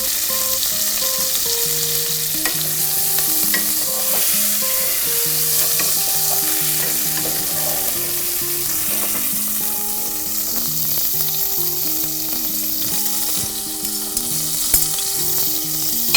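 Hot oil sizzling steadily in a casserole pot left from browning chicken pieces, ready for sautéing vegetables. A sharp click sounds near the end.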